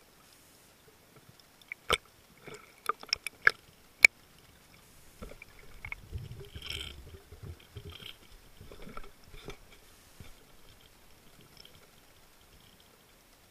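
Underwater sound through a diving-mask camera: a run of sharp clicks and knocks about two to four seconds in, the last the loudest, then a low rumbling swish of water movement that dies away about ten seconds in.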